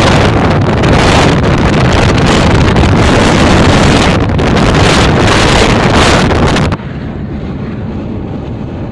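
Wind buffeting the microphone of a car moving along a highway, over steady road noise. About seven seconds in the wind noise cuts off suddenly, leaving a quieter, steady low hum of the moving car.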